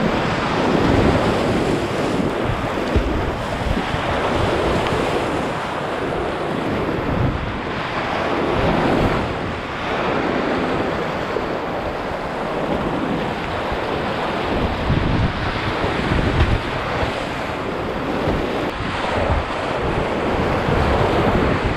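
Rushing whitewater of a river rapid, heard from a kayak running through it, with water and wind buffeting the helmet-mounted microphone.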